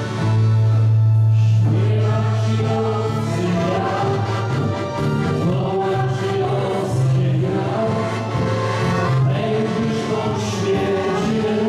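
A small folk vocal group, mostly women, singing in chorus, accompanied by a piano accordion with steady held bass notes; the voices come in about two seconds in.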